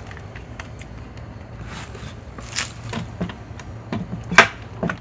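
Short clicks, knocks and scrapes of a Black & Decker Matrix cordless saw being handled, with one sharp click near the end; the motor does not start because the trigger will not pull.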